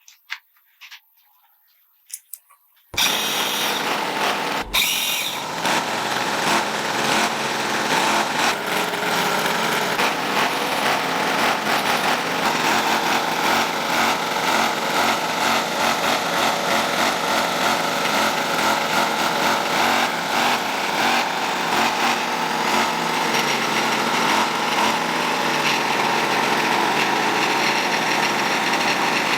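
Near silence, then about three seconds in a small motor-driven tool starts up suddenly and runs steadily without letting up.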